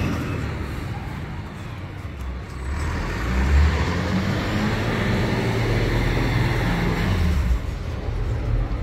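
Street traffic: a road vehicle's engine running nearby with a low rumble, growing louder about three seconds in.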